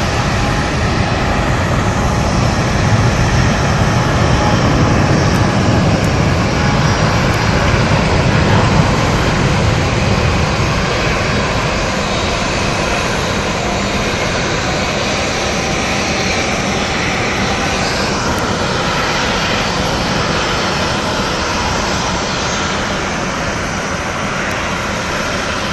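Jet airliner engines heard as a plane passes close by: a loud, sustained rushing noise that is strongest in the first ten seconds or so, then eases off a little.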